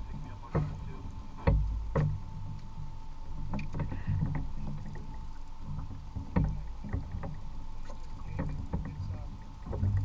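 Sounds of a fishing kayak on calm sea: water moving against the hull as a low rumble, broken by irregular knocks and clunks on the boat, with a faint steady high hum underneath.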